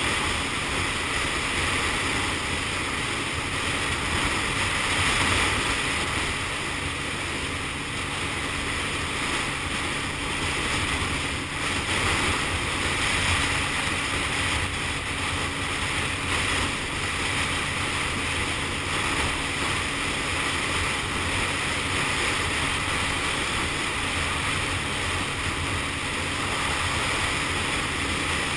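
Motorcycle cruising at a steady speed: a constant rush of wind over the camera's microphone, with the engine running steadily underneath.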